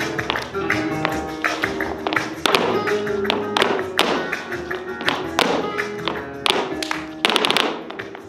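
Flamenco tangos music with sharp percussive hits in rhythm, and a fast flurry of hits near the end.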